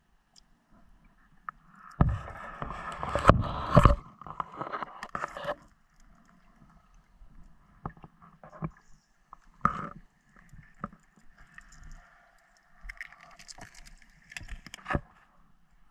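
Underwater knocks and scrapes as a spearfisher moves among submerged reed stems: a burst of clattering about two seconds in, then single sharp knocks near the middle and near the end.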